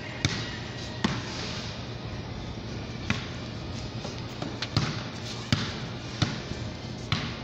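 A ball bouncing on a concrete court, plausibly a basketball: about seven sharp bounces at uneven intervals of one to two seconds, over steady outdoor background noise with a low hum.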